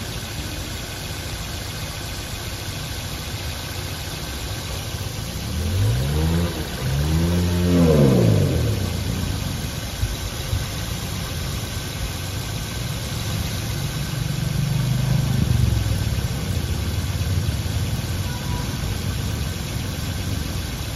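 Car engine idling with the bonnet open, revved twice in quick succession about six seconds in, each rev rising and dropping back to idle. A gentler rise and fall in engine speed follows about halfway through.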